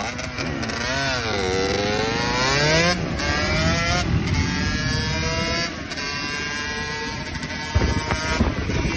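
Dirt bike motor riding off under throttle. Its pitch dips and then rises, and it breaks off and climbs again a few times. There is a short sharp knock near the end.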